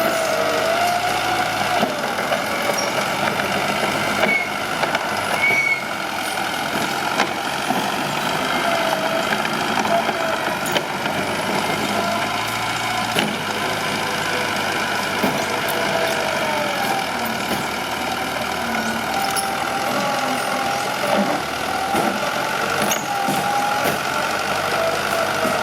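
Mitsubishi BD2H bulldozer's diesel engine running steadily under work, with a wavering whine that comes and goes and scattered metallic clanks from the machine as it pushes.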